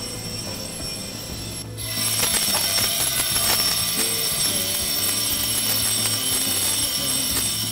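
Electric bell inside a vacuum bell jar ringing continuously, its rapid clapper strikes audible again now that air has been let back into the jar. It gets louder about two seconds in.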